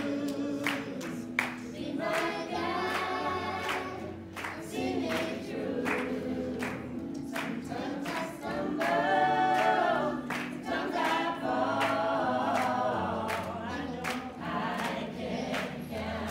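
Several voices singing a gospel song together, with a steady beat under the singing.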